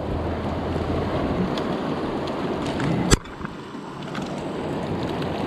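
Creek water rushing steadily, with a single sharp click about three seconds in.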